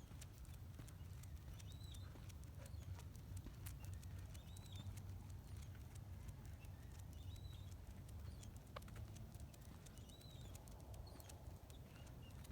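Faint, high, short call that rises and falls, repeated about every couple of seconds, from an unidentified animal, over a low steady rumble.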